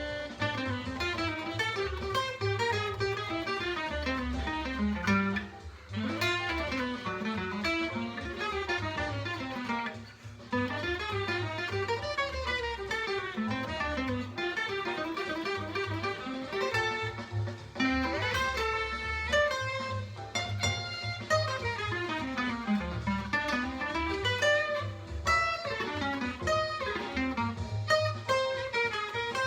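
1938 Epiphone Deluxe acoustic archtop guitar playing a fast single-note jazz solo line. The runs climb and fall, with short breaks about five and ten seconds in.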